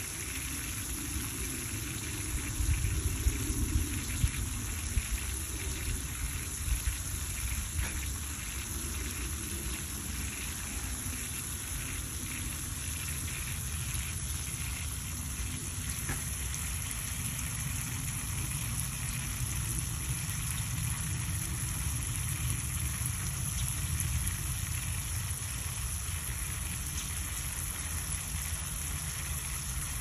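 Steady outdoor background hiss, with a low rumble that is strongest a few seconds in.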